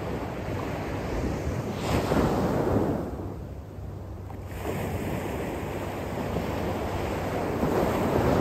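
Ocean surf: small waves breaking and washing up a sandy shore, swelling louder about two seconds in and again near the end.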